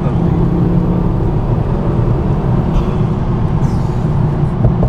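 Mk2 Ford Focus ST's turbocharged five-cylinder engine running on the move, a steady drone with road noise. A faint high whine is heard over the first few seconds.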